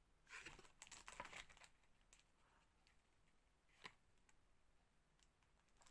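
Faint handling noise from a cardboard pin-backing card being lowered and put down: a short run of light rustles and clicks in the first second and a half, then two single soft clicks.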